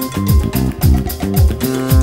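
Music with a steady beat: a deep kick drum about twice a second, crisp high strokes on the beat, and sustained notes underneath.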